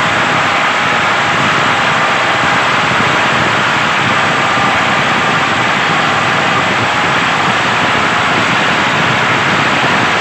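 A steady, loud mechanical running noise that keeps an even pitch and level throughout.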